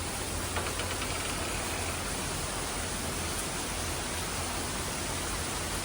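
Heavy rain pouring, a steady, even hiss of rainfall.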